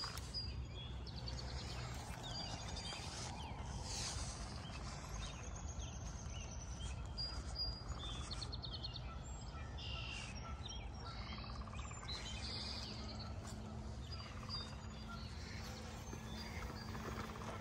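Small birds chirping, with many short high calls and a few quick trills scattered throughout, over a low steady rumble.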